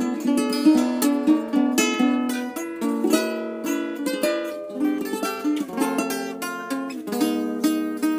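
Guitar and ukulele playing an instrumental piece together in quick plucked notes.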